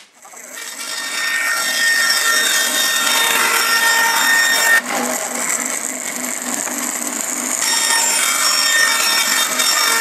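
Bandsaw running and cutting through a glued panel of 20 mm beech planks, growing louder over the first second or two. The cutting sound shifts about halfway through and again a couple of seconds later.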